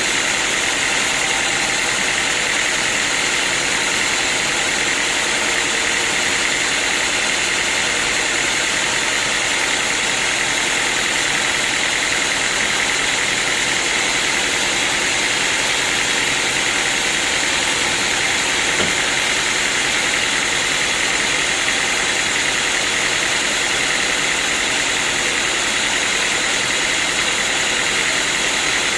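Sawmill machinery running steadily: continuous, unbroken machine noise with a steady high whine.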